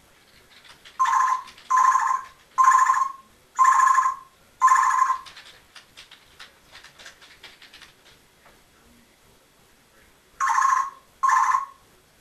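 Congo African grey parrot mimicking an electronic ringtone beep. There are five identical short beeps about a second apart, a pause, then two more near the end.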